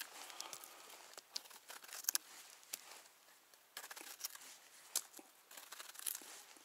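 A small knife scraping and paring the base of a freshly picked porcini (cep) stem, in faint, irregular scrapes and crisp clicks.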